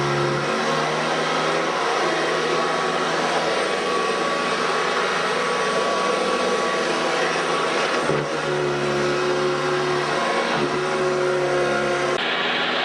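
Hoover Decade 80 upright vacuum cleaner running: a steady motor and airflow whir whose tone shifts slightly a few times and turns duller near the end.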